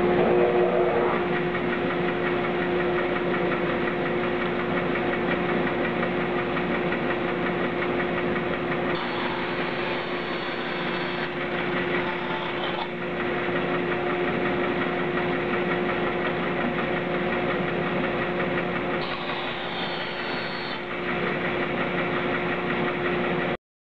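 Bandsaw running with a steady hum, its blade cutting into a wooden panel in two short passes, about nine seconds in and again near the end. The sound cuts off suddenly just before the end.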